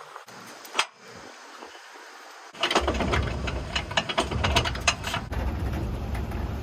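Quiet with a single click, then a low engine rumble comes in suddenly about two and a half seconds in and keeps going, with a rapid clatter of clicks and rattles over the next couple of seconds.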